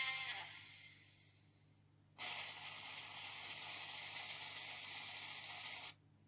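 Background music fades out. About two seconds in, a steady hiss starts abruptly, holds at an even level for nearly four seconds, and then cuts off sharply.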